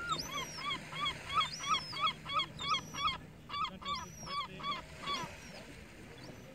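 Juvenile herring gull begging from an adult: a rapid series of short, repeated calls, about three a second, with thin high whistles over them, stopping about five seconds in.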